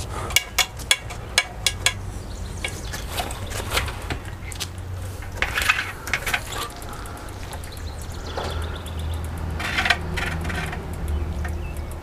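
Sharp metallic clicks and clinks from hands and tools working on a bicycle wheel in a truing stand, a quick run of them in the first two seconds and scattered ones after, over a steady low hum.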